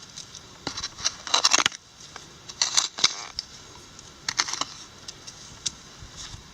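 Digging tool scraping and clinking through creek gravel and stones in four short bursts, while a hole is dug to recover a buried target.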